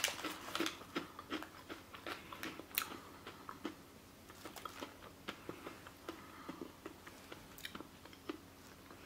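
Crunching and chewing a hard, crunchy broad bean snack with the mouth closed. A quick run of crunches at first that thins out to scattered ones after about three seconds.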